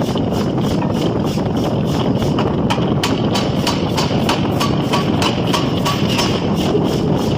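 Forging power hammer striking steel in a fast, even rhythm of about four to five blows a second, over a steady loud machine din.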